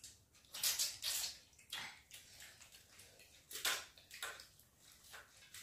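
People eating rice and chicken curry with their hands from steel plates: chewing, lip-smacking and mixing sounds in about half a dozen short, irregular bursts.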